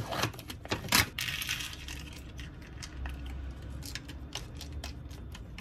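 Hard objects clinking and knocking in a string of sharp clicks, the loudest about a second in and followed by a short hiss, over a low steady hum.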